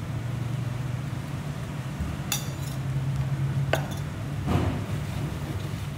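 A spoon clinking against a metal kadai of simmering gravy while spice powder is added: two sharp clinks in the middle and a duller knock shortly after, over a steady low hum.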